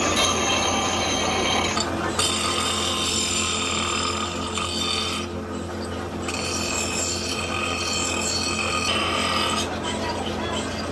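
Factory workshop noise: a steady machine hum under scraping and rubbing, changing abruptly about two seconds in, again around five to six seconds, and near the end.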